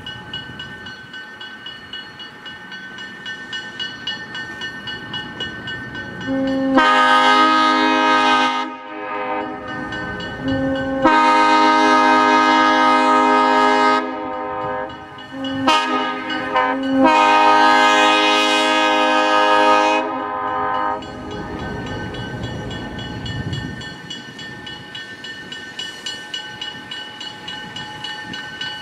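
FPA diesel locomotive's air horn sounding the grade-crossing signal: two long blasts, a short one, then a long one. A rhythmic clicking of wheels over rail joints runs before and after the horn.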